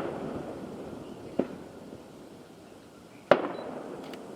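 Aerial fireworks shells bursting: a smaller bang about a second and a half in and a louder one near the end, each trailing off into a fading echo.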